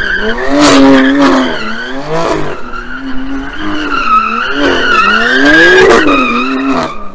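BMW M3 Competition's twin-turbo straight-six revving up and down repeatedly as the car drifts in circles, its rear tyres squealing with a wavering high tone. It is loudest about a second in and again near six seconds.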